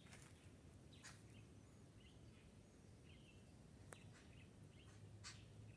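Faint, scattered calls of forest birds: short chirps and sharp, clipped notes, about one or two a second.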